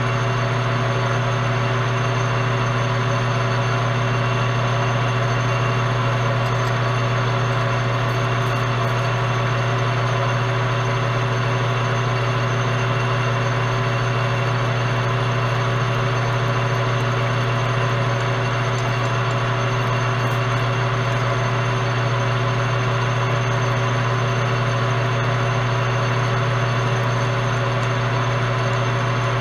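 Metal lathe running steadily with a strong low hum, as a twist drill in the tailstock is fed into the spinning part without a center-drilled start.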